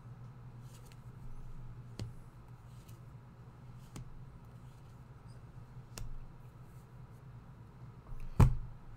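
Tarot cards being handled and dealt onto a cloth-covered table: quiet handling with a few faint clicks over a steady low hum, and one dull thump near the end.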